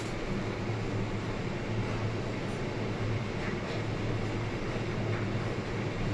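Steady rushing hum of commercial kitchen equipment and ventilation, with a low hum that keeps swelling and fading and a couple of faint light clicks.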